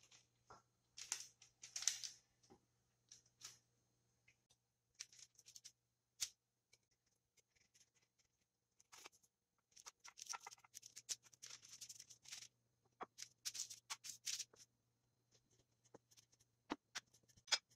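Faint, intermittent rustling and scraping of parchment paper and dough, with a knife cutting a round of honey cake dough against a plate on the paper-lined baking tray, and a few light clicks.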